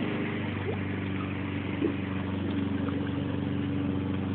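An engine running steadily at an even speed, a low hum with a faint higher buzz, with no change in pitch.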